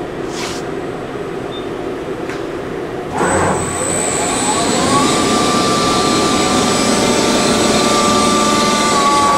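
Clausing Metosa CNC1540 lathe's 10 HP spindle drive under a CNC test program. The spindle starts about three seconds in and spins up with a rising whine, then holds a steady high whine over the machine hum. Near the end the pitch shifts as the program changes spindle speed.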